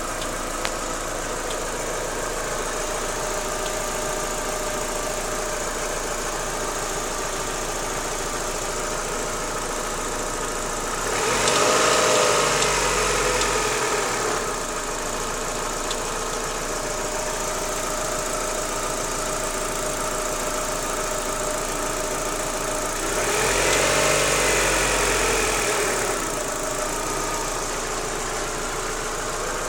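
Daewoo Lanos 1.6 16V four-cylinder engine idling with an extraneous knock, which went away once the timing belt and its rollers were replaced. Twice, about 11 and 23 seconds in, the engine speed rises and falls back to idle.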